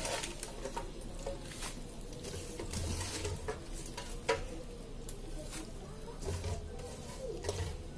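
Fresh spinach leaves dropping into a pan of simmering coconut milk, with soft rustling and scattered small irregular pops and ticks.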